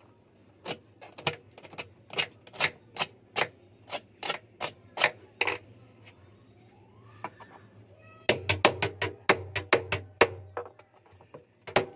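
A screwdriver being tapped in with a hammer, making repeated sharp metallic knocks, about two to three a second. After a pause of a few seconds comes a faster run of knocks. The screwdriver is being driven in to pry out a part on a washing machine drum that is stiff with age.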